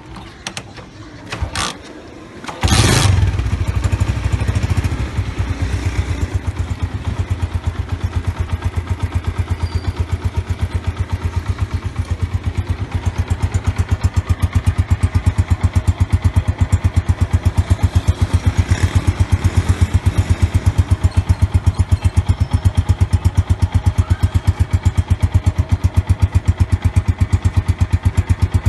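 Honda CG125's single-cylinder four-stroke engine with an aftermarket Lahori silencer: a few clicks, then it starts about three seconds in and idles with even, rapid exhaust beats.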